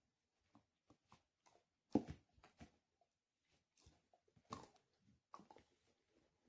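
Dog chewing a hard nylon chew bone: faint, irregular clicks and knocks of teeth on the toy, loudest about two seconds in.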